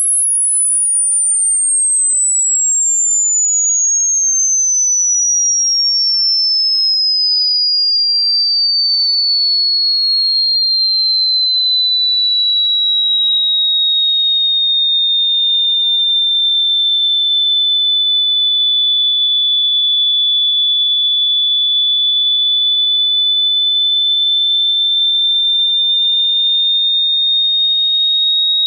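A single pure electronic sine-wave tone, loud and steady, sweeping slowly down from a piercing high pitch to a lower shrill whine, then creeping slightly back up near the end.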